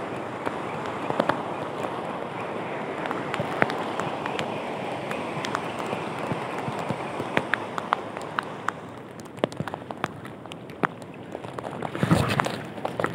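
Sea waves washing steadily, with scattered sharp ticks throughout and a brief louder rush of noise near the end.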